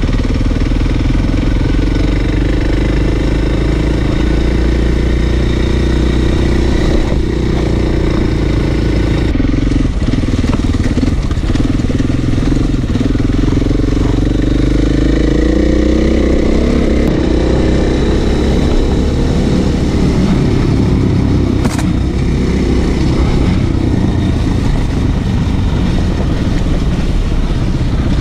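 Motorcycle engine running while riding off-road, its revs rising and falling with the throttle.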